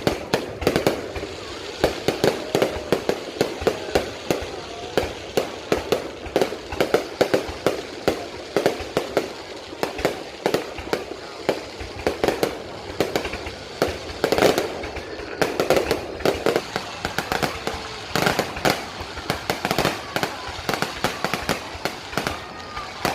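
Aerial fireworks going off in a rapid, continuous barrage of bangs and crackling pops, several a second, with a louder cluster about fourteen seconds in.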